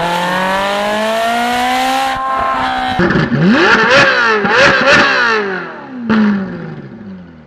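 Ferrari 458 Italia's high-revving oversquare V8 accelerating with a steadily rising pitch. After a cut, the engine is blipped several times in quick rises and falls of revs, and the pitch falls away as it fades near the end.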